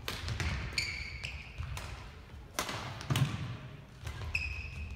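Badminton play on an indoor court: sharp racket-and-shuttle knocks and the thud of a player's footfalls, echoing in the hall, with court shoes squeaking on the floor twice, about a second in and again near the end.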